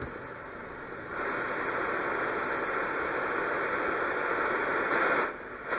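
Static hiss from a vintage Cariole shortwave radio's speaker as it is tuned across its TV band 2, an empty band with no station on it. The hiss grows louder about a second in, holds steady, and drops away near the end.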